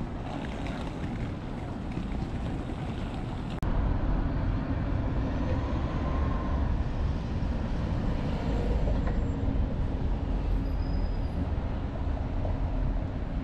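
Outdoor street ambience at a city tram stop: a steady low rumble of traffic and trams, with no single event standing out. It gets louder after a cut about three and a half seconds in.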